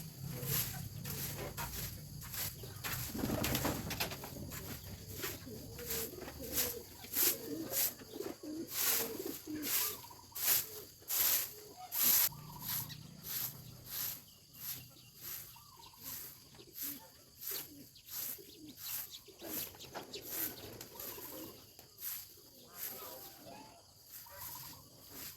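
Farm poultry calling softly with low, murmuring calls, over a regular series of sharp ticks about once a second that grow fainter about halfway through.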